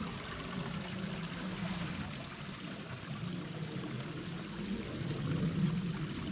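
Flowing water running with a steady rush.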